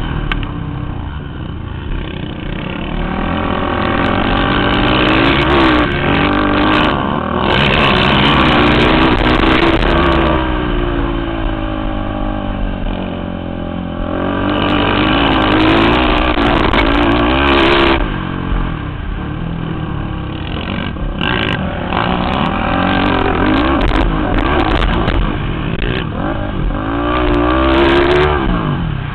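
Sport quad (ATV) engine heard up close from on board, revving up and dropping back again and again as the rider accelerates and backs off around a dirt track.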